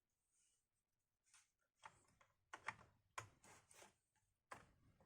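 A series of light clicks and taps, about eight of them in irregular succession: a laptop RAM module being handled and seated into its memory slot.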